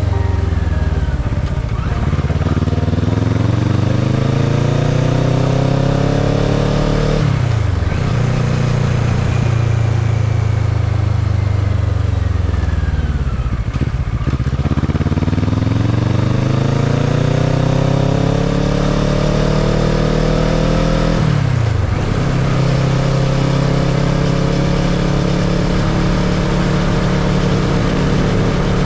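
Kawasaki ER-6n's 649 cc parallel-twin engine pulling through the gears: the revs climb, fall sharply at a gear change about seven seconds in, climb again, ease off and pick up again around the middle, climb to another shift a little past twenty seconds, then hold steady at cruising speed. Wind rush runs underneath.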